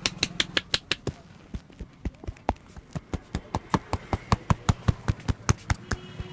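Rapid hand strikes of an Indian barber's head massage, about six slaps a second. There is a short pause about a second in, then the strikes resume, slower at first and then quick again.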